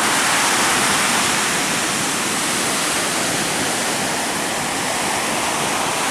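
Strong onshore wind and breaking sea waves: a loud, steady rushing roar with no separate wave crashes standing out.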